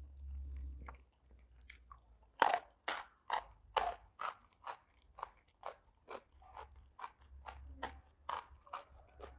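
Close-miked crunchy chewing of a mouthful of raw jengkol beans. One loud bite about two seconds in, then steady crisp crunches about twice a second.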